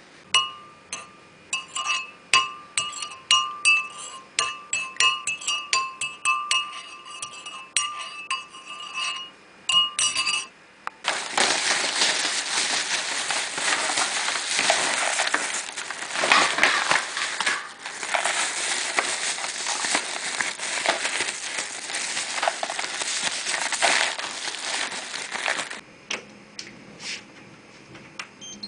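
Rapid clinking, like a glass or similar hard object being tapped over and over, each strike ringing at the same two pitches for about ten seconds. Then a dense rattling hiss that runs for about fifteen seconds and stops suddenly a few seconds before the end.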